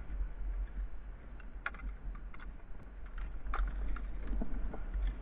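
Scattered light clicks and knocks as a landing net holding a redfish and its handle are handled against a plastic fishing kayak, over a steady low rumble.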